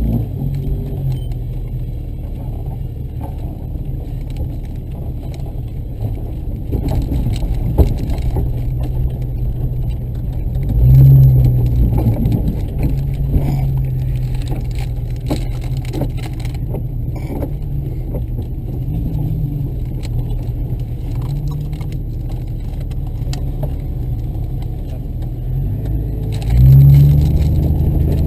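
Vehicle engine running steadily with a low hum, revving up louder about eleven seconds in and again near the end, over scattered clicks and rattles.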